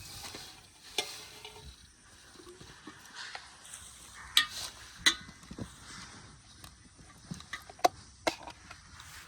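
Irregular splashing and stirring of muddy water with a few sharp clicks, the loudest about four to five seconds in and again near eight seconds.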